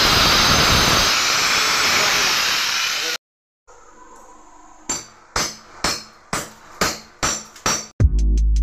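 Corded angle grinder cutting into a masonry wall, a steady harsh grinding that stops suddenly about three seconds in. After a short pause a chisel is hammered into the masonry seven times, about two blows a second, breaking out the opening. Electronic music with a beat starts near the end.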